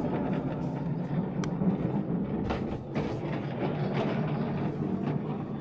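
Steady background hubbub of a large indoor hall, a dense low rumble of distant voices and activity with a few faint clicks.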